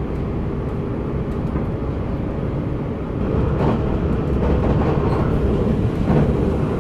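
Passenger train running at speed, a steady low rumble heard from inside the carriage, growing a little louder about three seconds in, with a few faint knocks.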